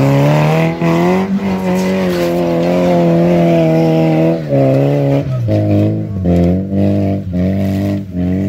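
Opel Frontera SUV's engine revving hard under load as it climbs a loose dirt slope with its wheels spinning. The revs rise at the start and hold high for about four seconds, then drop and come back in several short blips of the throttle.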